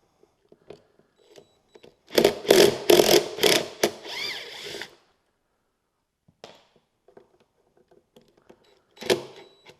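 Cordless impact driver with a T30 Torx bit on a knuckle adapter, hammering in a loud pulsing burst for about two seconds as it loosens a handle bolt, then spinning more lightly with a rising whine. It starts hammering again just before the end.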